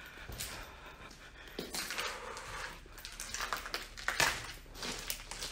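A man's heavy breathing close to the microphone, in irregular rushes, with scuffing footsteps on a rubble-strewn floor.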